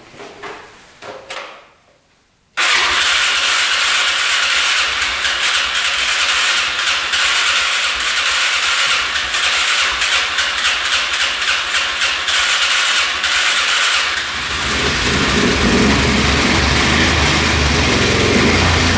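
A few knocks, then about two and a half seconds in the 2005 Can-Am Outlander 400's engine is cranked over on its starter. About fourteen seconds in the sound gains a deeper, steadier rumble as the engine catches and keeps running. This is the first start of an engine that would not fire and had been suspected of low compression.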